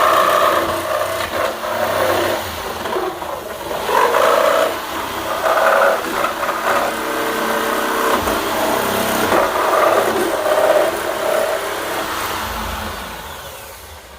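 Hyper Tough 3.5-amp jigsaw with its stock general-purpose T-shank blade cutting through a plastic milk crate, the motor running steadily on a high speed setting without stalling, its whine shifting in pitch as the blade bites. The sound dies away near the end.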